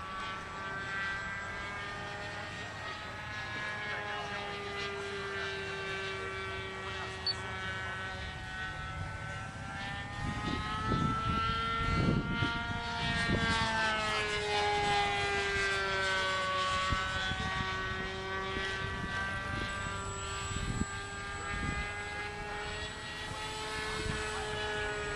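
NGH 9cc single-cylinder two-stroke gasoline engine of an RC model airplane running in flight, turning its 11x7 propeller. Its steady buzzing note wavers in pitch as the plane manoeuvres, rising and then falling and growing loudest around the middle as it passes closer.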